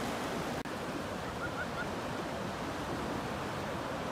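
Sea surf and moving water making a steady rush.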